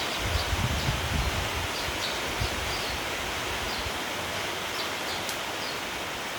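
Steady rain falling through leafy trees, with short high sparrow chirps now and then. Gusts of wind rumble on the microphone in the first second or so.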